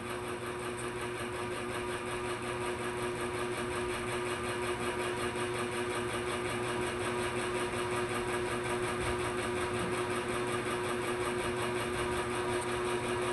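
Small battery-powered wobble mechanism in the standee figures buzzing steadily, a constant hum with a fast even pulse.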